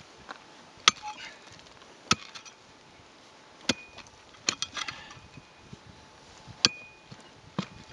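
Long-handled steel pick striking hard, stony ground about six times at uneven intervals, each blow a sharp chop. Smaller knocks and scrapes of loosened dirt follow some blows, and a couple leave a brief metallic ring.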